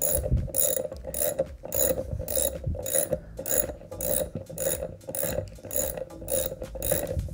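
Socket ratchet wrench with a 3/4-inch socket clicking steadily, about two to three strokes a second, as it drives in the greased shoulder bolt on a Vacuflush vacuum pump motor.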